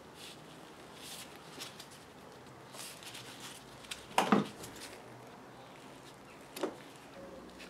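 Gloved hands handling a coil of silicone vacuum hose: faint rustling and handling noise, with a short knock a little after four seconds in and a lighter one about two seconds later.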